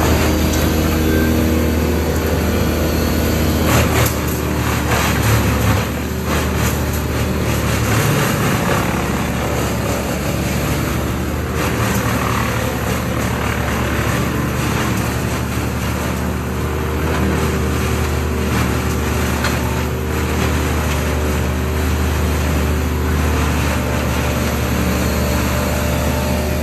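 Heavy diesel machinery running steadily: a Schäffer mini loader working close by over the drone of a 300 hp Bandit brush chipper's engine. A few sharp cracks come about four and six seconds in.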